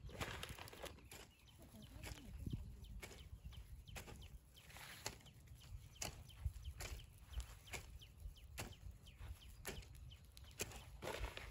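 Hand hoe striking and scraping into dry, loose soil, a short sharp chop every half second to a second as the furrow is opened.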